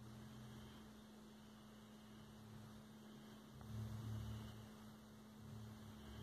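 Near silence: a faint steady hum, with a low rumble underneath that swells briefly about four seconds in.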